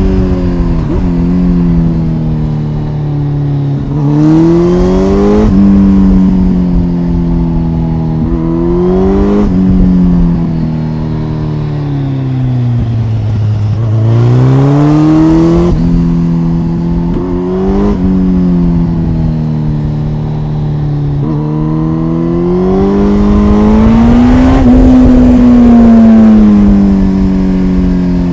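2005 Kawasaki ZX-10R's inline-four engine and exhaust heard on board while riding. The engine rises in pitch under acceleration and drops sharply at each quick gear change, then glides down as the bike slows, with wind noise during the faster stretches.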